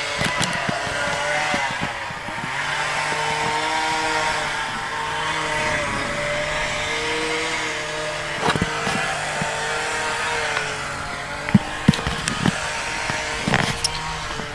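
A motor running steadily, a hum of several even tones that waver slightly in pitch, with a few sharp knocks over the last few seconds.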